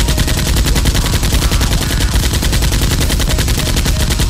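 Automatic-gunfire sound effect: a rapid, even stream of shots, many per second.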